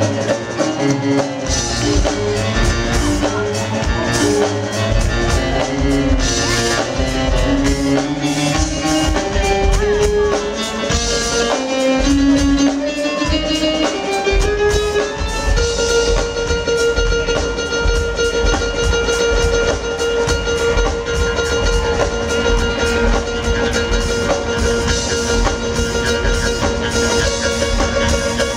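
Live smooth-jazz band playing over a steady bass and drum groove. A lead line moves in quick notes, then settles on one long held note about halfway through.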